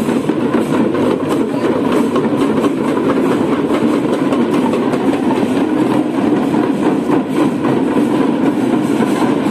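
Troupe of marching drummers with waist-slung drums beating fast, dense, unbroken drumming, loud and steady throughout.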